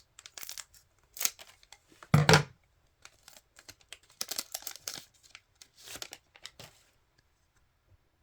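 A trading card pack wrapper being torn open and crinkled by hand, in a run of irregular rustles and tears with one louder burst about two seconds in.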